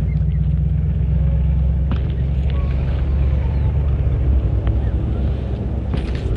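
A loud, steady low rumble with a few faint clicks.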